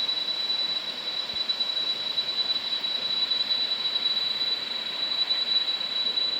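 Cicadas droning in tropical jungle: one steady, shrill, high-pitched tone over a hiss, unbroken throughout.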